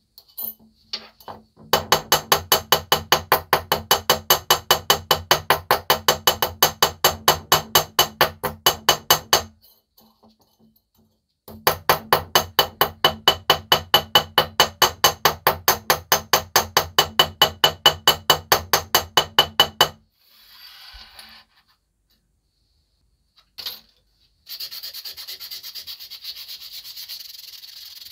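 Rhythmic, evenly spaced strokes of a hand tool working metal, about four or five a second, in two long runs with a short pause between. A steady hiss starts near the end.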